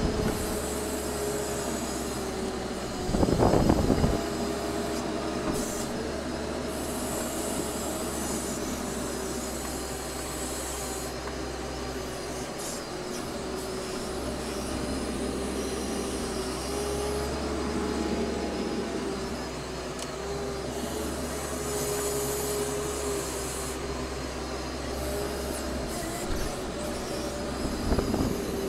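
Compact wheel loader running, heard from inside its cab: a steady engine drone with a wavering whine, and two louder surges, about three seconds in and again near the end, as it works.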